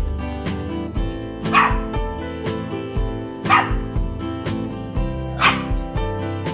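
A puppy barks three times, about two seconds apart, each bark short and sharp, over background music with a steady beat.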